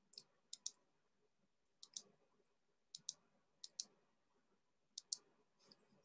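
Light, sharp clicks, mostly in close pairs and spaced irregularly about a second apart, from fingertip taps on an iPad's screen.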